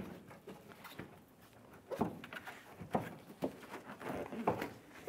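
Plastic front bumper cover of a Honda Odyssey being worked free of its mounting clips under the headlight: a handful of short, irregular clicks and knocks, starting about two seconds in.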